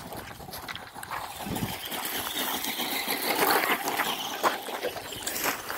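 Crunching and scuffing on gravel, with a steady hiss behind it.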